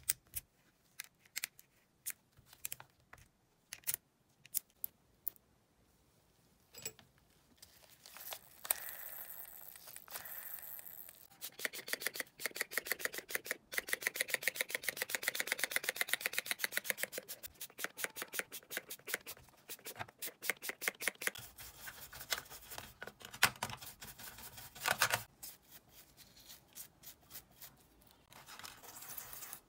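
Small metal drill-gearbox parts clicking as they are handled and pulled apart. Then a hand spray bottle is pumped in quick, even strokes, about four a second, spraying the gear parts in a metal tray, followed by scattered clicks and scrapes of the parts.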